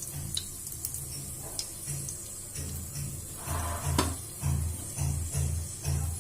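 Dry spices sizzling in hot oil in a pressure cooker while being stirred, with a regular low knocking about twice a second in the second half and a sharp clink about four seconds in.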